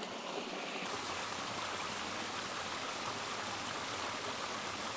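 Creek water running steadily as a small waterfall spills over a ledge into a pool, an even rushing sound.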